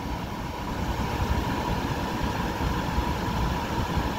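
Coleman basement RV air conditioner running steadily, its first-stage compressor and blower humming, with a steady whine on top.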